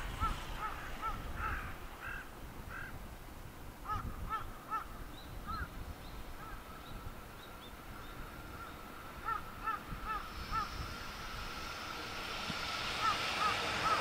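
A bird calling in short runs of quick, repeated notes. From about ten seconds in, the noise of an approaching JR Freight EF210 electric locomotive and its container train rises steadily and becomes the loudest sound by the end.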